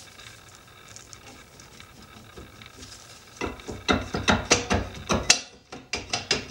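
A Honda Civic wagon's rear brake drum, rocked side to side by hand to work it off the hub and shoes, rattling and clanking. After a quiet start it gives a quick, irregular run of metal knocks over the last three seconds or so as it comes free.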